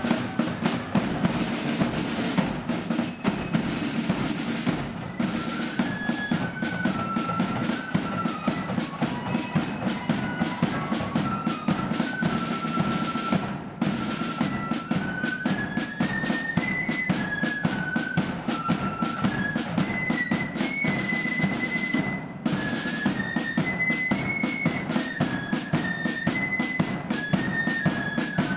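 Blood-and-thunder marching flute band playing: rapid snare-drum rolls and bass drum beats, with flutes taking up a tune about five seconds in.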